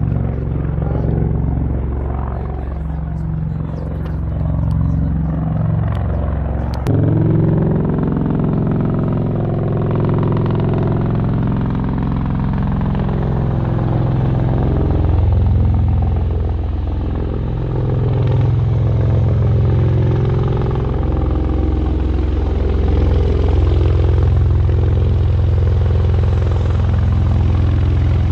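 Heavy engines running loudly with a low, droning pitch that shifts up and down, changing abruptly about seven seconds in.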